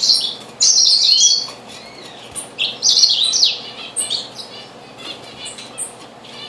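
Small birds chirping and twittering in quick, overlapping high calls, with a few short rising and falling whistles. The calls come loudest in a burst at the start and again about three seconds in.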